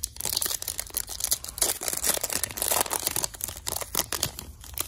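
Foil wrapper of a 2019 Panini Prizm Draft Picks basketball card pack being torn open and pulled apart by hand: a continuous run of crinkling and tearing with many sharp crackles.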